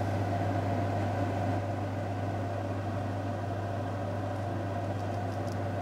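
Steady low mechanical hum with a faint even hiss, unchanging throughout.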